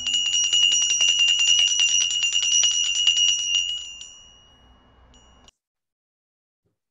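Altar bells (Sanctus bells) shaken rapidly, a bright jingling ring for about four seconds that then dies away, rung at the elevation of the host at the consecration of the Mass. The audio cuts off abruptly about a second later.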